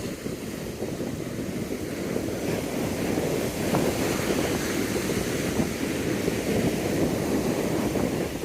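Steady rush of wind and surf, a noisy roar that swells a little midway.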